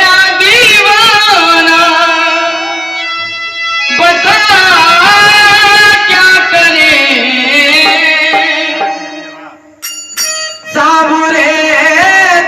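Devotional Krishna bhajan music: a melodic line with wavering, bending pitch over steady sustained accompaniment. It dips briefly about ten seconds in and then comes back.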